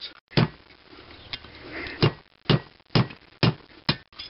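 Hammer striking a chisel, about seven sharp blows at roughly two a second, chiselling a rusted pipe fitting out of the threaded port in a cast-iron International Harvester 1½ hp engine cylinder head, without heat.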